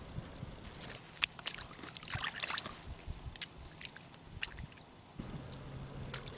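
Hands sloshing and splashing in a slushy puddle of ice water while rinsing cleaned fish, with scattered short splashes and clicks.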